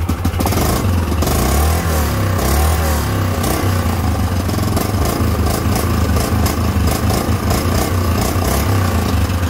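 2005 Yamaha Grizzly 660 ATV's single-cylinder four-stroke engine running. It is revved up and down in the first few seconds, then holds a steady speed without stalling, its idle-stalling fault apparently cured by a refitted spark plug cap and a missing fuse.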